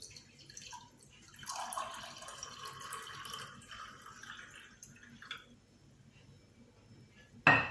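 Juice poured into a drinking glass for about three and a half seconds, a splashing, ringing pour. A single sharp knock near the end is the loudest sound.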